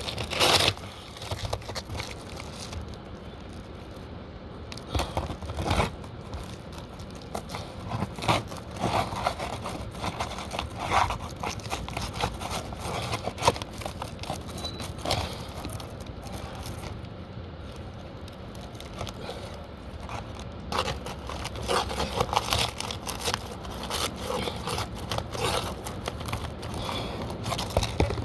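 Hammer prying under asphalt roof shingles: irregular scraping, crackling and tearing as the shingles are lifted and ripped off their nails.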